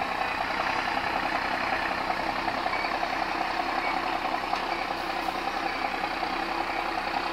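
Diesel engine of a three-axle MAN trial truck running steadily as the truck crawls along a steep dirt slope.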